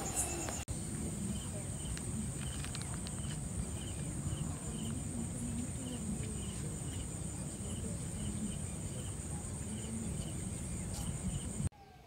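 Insects trilling in one steady, high, unbroken note, with a faint short chirp repeating about twice a second, over a low rumble. The sound drops away suddenly near the end.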